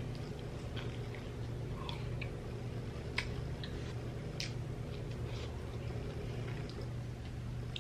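Close-up chewing and biting of a fried vegetable samosa, with a few sharp crunches of the pastry, the loudest about three seconds in. A steady low hum sits underneath.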